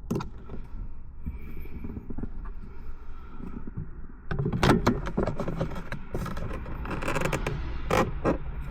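Plastic centre console parts being handled: irregular clicks, knocks and scraping, busier from about halfway through, over a steady low hum.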